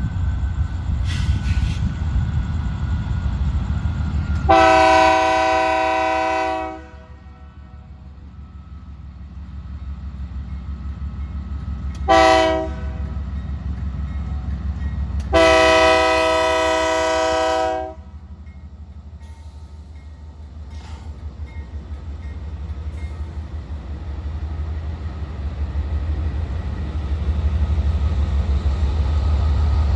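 Freight locomotive air horn sounding three blasts: a long one about four seconds in, a short one around twelve seconds, and another long one around fifteen seconds. Under it, the diesel engines of the GE Dash 9 rebuild locomotives run with a steady low rumble that grows louder near the end as the train departs.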